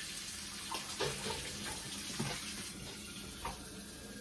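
Water running from a kitchen faucet into the sink: a steady hiss with a few light knocks.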